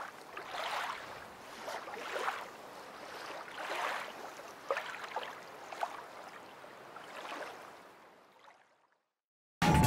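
Water lapping and gurgling in gentle swells, with small bubbling plinks, fading away near the end. A loud music jingle cuts in right at the close.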